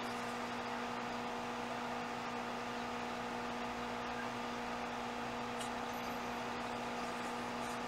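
Steady background hum and hiss with a constant low tone and its overtones, unchanging throughout.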